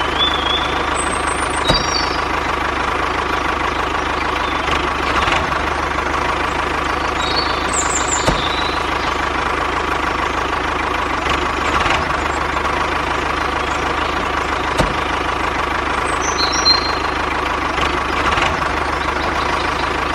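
Remote-controlled model tractor running steadily as it pulls a loaded-looking trolley over sand: an even engine-like drone with a held tone and no change in speed, with a few short high chirps scattered through.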